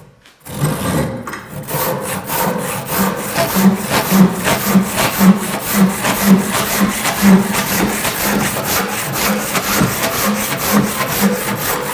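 A Bahco Ergo handsaw cutting through a length of timber, in steady back-and-forth strokes about two a second. The sawing starts about half a second in.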